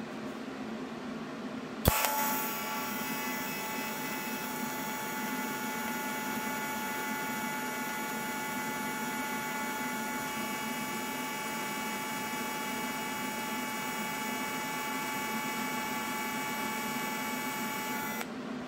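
DC TIG welding arc from an AHP AlphaTIG 200X, struck with a sharp crack about two seconds in. It then burns as a steady hiss with a fixed high whine, and cuts off suddenly near the end when the pedal is released.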